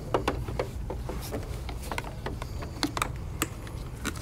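Scattered light clicks and rustles of hands handling a power wheelchair's joystick cable and its plastic wrapping, over a steady low hum.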